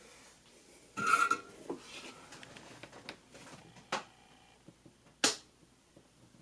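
Small objects being handled on a workbench: a brief clatter with a short ring about a second in, then two sharp clicks later, the second the louder.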